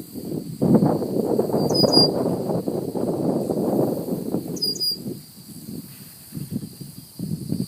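Outdoor wetland ambience: a low, uneven rushing noise that eases after about five seconds, with a short high chirp heard twice, about three seconds apart.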